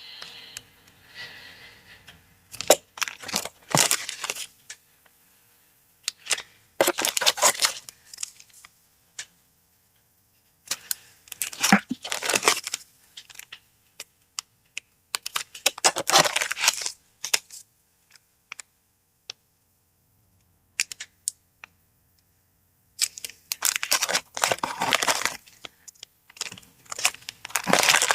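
Paper packaging handled up close, crinkling and tearing in bursts a second or two long with short silent pauses between.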